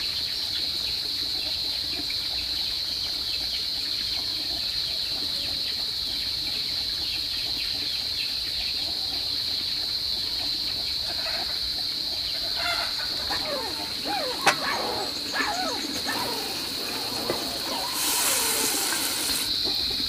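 A steady, high-pitched insect drone, like crickets, with birds calling now and then in the second half. There is a single sharp click partway through.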